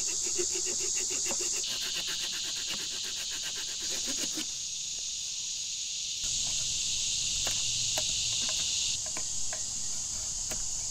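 A steady, high-pitched chorus of insects buzzing. A few light clicks and scrapes come from a blade cutting into a wooden pole.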